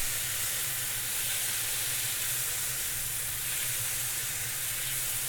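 Onion and chopped-tomato masala frying in oil on a non-stick tawa over high heat: a steady sizzle.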